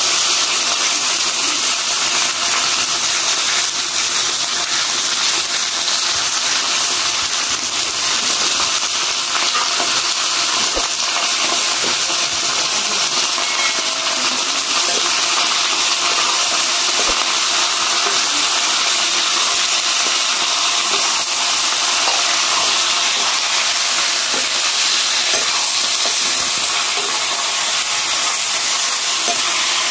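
Raw chicken pieces frying in hot oil in an iron karahi, freshly added on top of onions: a steady sizzle.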